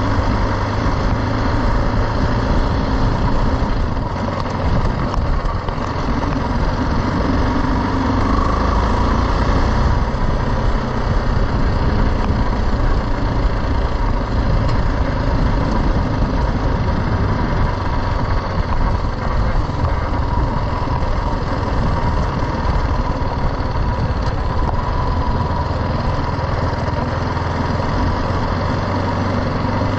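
BMW G310 GS motorcycle's single-cylinder engine running at steady, low revs as the bike rides along a dirt track.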